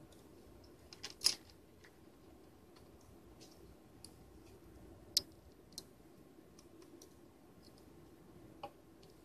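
Scattered light clicks and taps of a small plastic pump housing handled in the fingers, a few sharp ones about a second in and single ones every couple of seconds after.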